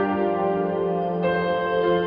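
Ambient background music of long sustained notes, with a chord change about a second in.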